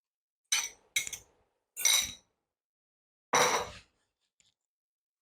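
Kitchen utensils clinking and knocking against cookware: four short clinks, the last one longer and fuller.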